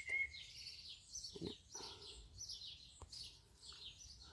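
Small songbirds chirping: a steady run of short, high chirps that fall in pitch, several a second, heard faintly.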